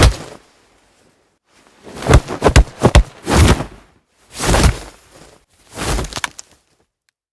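Fight sound effects: a quick run of sharp hits about two seconds in, then three separate whooshing swells with impacts about a second apart, each cut off by silence.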